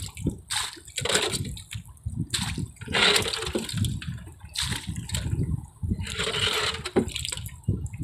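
Sea water splashing and slapping against a small fishing boat in choppy waves, coming in repeated irregular surges.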